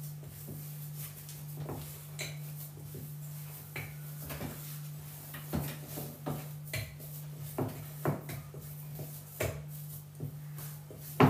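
Hands kneading oat cookie dough with chocolate pieces in a bowl: irregular soft knocks and scrapes as the bowl shifts on a wooden cutting board, with one sharper knock near the end. A steady low hum runs underneath.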